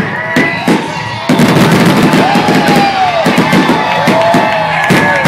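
Aerial fireworks bursting in rapid succession with sharp bangs, thickening about a second in into a dense, continuous barrage.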